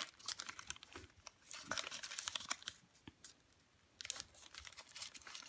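A sheet of origami paper being folded and creased by hand: irregular crinkling and rustling with sharp little crackles, pausing for about a second around three seconds in.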